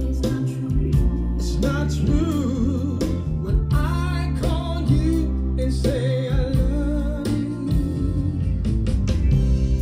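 Recorded music played back through a pair of JBL 4343 studio monitors and picked up by microphones in front of them: a song with a singing voice, guitar and a steady bass line.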